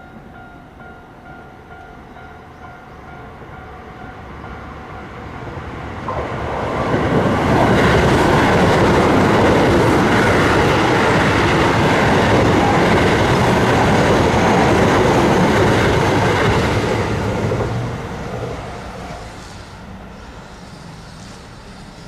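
Level-crossing warning bell ringing in a steady repeating pattern, then an electric commuter train passes over the crossing. The train builds up from about six seconds in, stays loud for about ten seconds, and fades away near the end.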